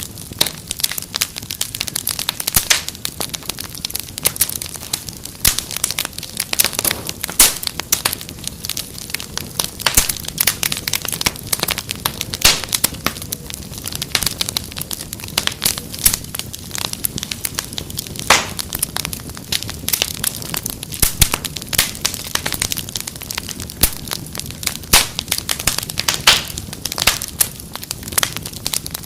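Fireplace fire crackling, with frequent irregular sharp pops and snaps over a steady low rumble.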